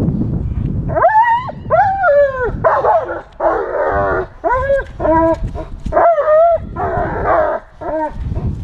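Dog barking excitedly in a rapid run of high-pitched yelping, whining calls mixed with rougher barks, starting about a second in.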